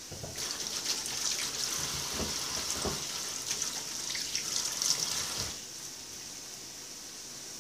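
Kitchen tap running with water splashing into the sink, turned on and shut off after about five seconds.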